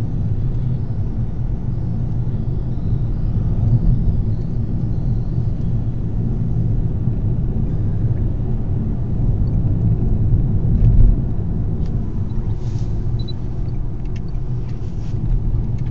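Steady low rumble of a car driving along a road, heard from inside the cabin, with a brief louder bump about eleven seconds in.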